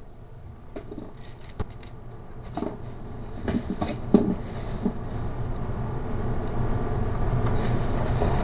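Small objects clicking and knocking as things are rummaged through in a search, over a low rumble that grows steadily louder.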